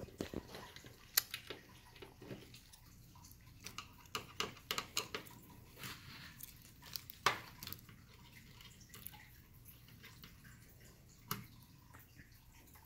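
Scattered light clicks and taps of small plastic and metal parts being handled while a CPU cooler's mounting hardware is fitted. The sharpest taps come about a second in and about seven seconds in, with a quick run of clicks in between.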